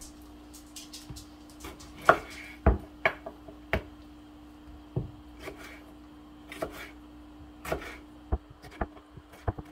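Kitchen knife dicing a tomato on a wooden cutting board: irregular knocks of the blade striking the board, coming quicker near the end. A steady low hum sits underneath and stops near the end.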